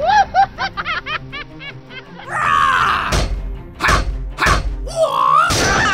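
Cheerful background music with cartoon sound effects: a quick run of bouncy, springy chirps, then a swish, then four heavy whacks.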